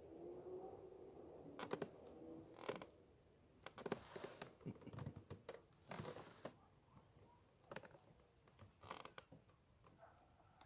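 Faint scattered clicks, scrapes and rustles of a match angler handling his float rod and tackle close to the microphone.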